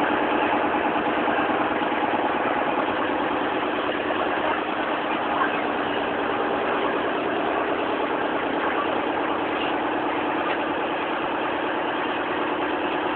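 Boat engine running steadily at constant speed, a continuous drone with no change in pitch.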